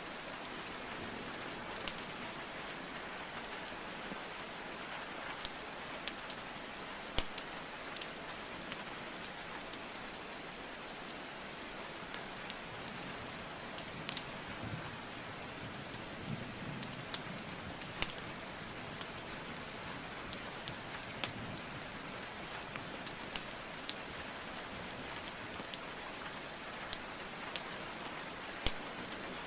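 Steady rainfall hiss mixed with a wood fire crackling, its sharp pops coming at irregular moments, a few of them louder than the rest.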